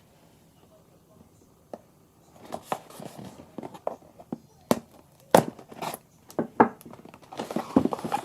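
Hands handling and opening a shipping package: rustling, crinkling and tearing with many sharp taps and knocks, starting about two seconds in and getting busier near the end.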